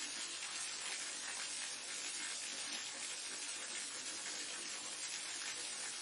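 Waterfall: a steady, unbroken rush of falling water with a bright hiss.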